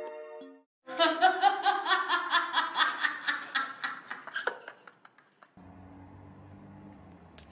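Laughter: a quick run of high-pitched "ha-ha" bursts, about five a second, fading away over some three and a half seconds. A faint low hum follows.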